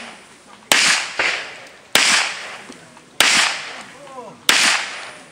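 Pistol shots fired one at a time, about one every second and a quarter, each a sharp crack with a short echoing tail: four loud shots, with a fainter crack just after the first.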